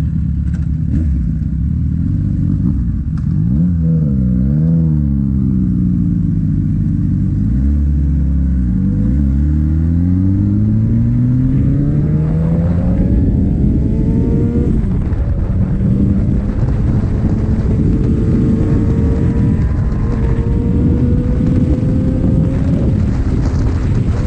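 Sport motorcycle engine on the move. Its note dips and recovers in pitch during the first ten seconds, climbs steadily under acceleration, drops sharply at a gear change about fifteen seconds in, then holds a slowly rising note.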